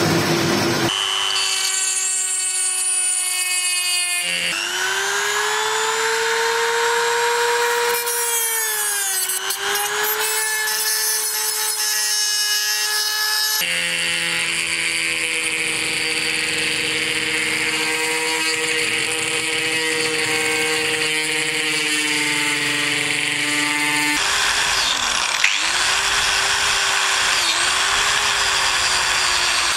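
Electric shop tools running one after another, each a steady motor whine that changes abruptly to the next, the pitch sagging briefly when the tool bites. First a metal lathe turns a brass fitting. Then a rotary tool grinds inside a toothed metal ring, and near the end an angle grinder with a wire cup brush scrubs the ring.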